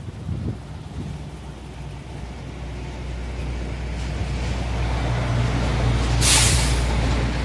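A heavy road vehicle's engine rumbling, growing steadily louder as it draws near, with a short loud hiss of air about six seconds in.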